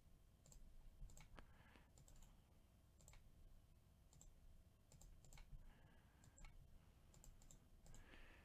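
Faint, irregular clicks of a computer mouse and keyboard, a dozen or so scattered over otherwise near silence.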